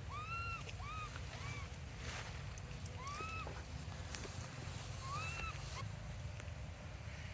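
Baby monkey giving short, high, arched squealing calls, each rising then falling: three in quick succession near the start, then single calls about three and five seconds in, over a steady low rumble.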